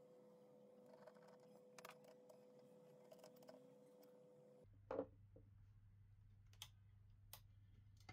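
Near silence: faint room hum with a few soft clicks and a brief knock about five seconds in, metal handling as a lathe chuck is tightened with its chuck key.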